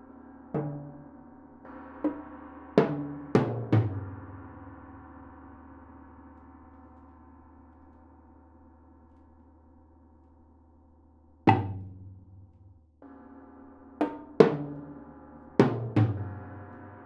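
Solo percussion: tom-toms struck in short irregular groups, five quick hits at the start, one lone hit past the middle and four more near the end, each ringing low as it decays. Under them a sustained metallic hum, the tam-tam, fades almost away in the long gap between the groups.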